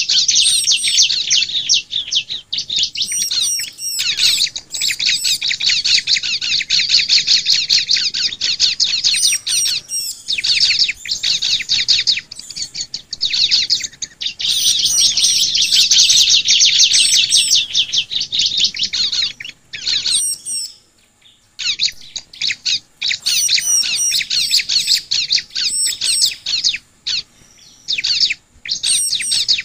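Bar-winged prinia (ciblek) song: long runs of very rapid, high, chattering chirps lasting several seconds each, broken by short pauses and one longer gap about two-thirds of the way through. It is lure song, the kind played to set captive ciblek singing.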